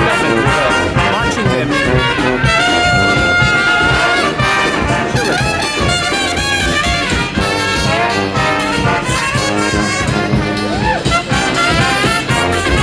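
Street brass band playing a tune, with trumpets and trombones over drums keeping a steady beat.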